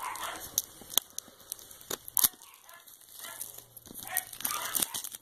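Plastic wrapping on a DVD box set being picked at and torn off by hand: crinkling and crackling, with a few sharp clicks.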